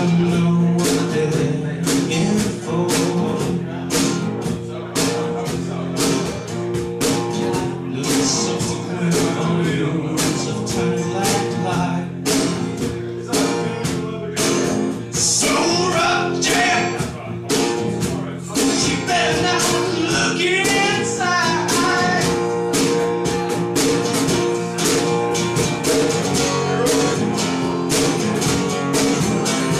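Live acoustic music: a strummed acoustic guitar and a cajón keeping a steady beat, with a voice singing.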